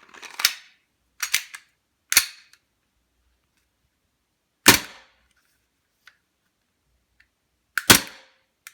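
A WE Glock 19 Gen 4 gas blowback airsoft pistol firing about five single shots, irregularly spaced. Each shot is a sharp crack as gas cycles the metal slide.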